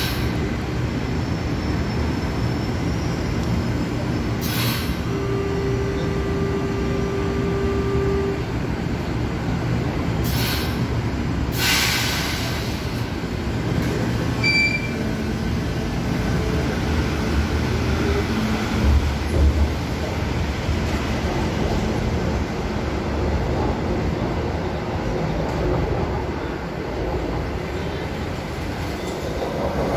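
Steady rumble of a São Paulo Metro Line 1 train moving along an elevated station platform. Short hissing bursts come about 4, 10 and 12 seconds in, and a brief steady tone sounds between about 5 and 8 seconds in.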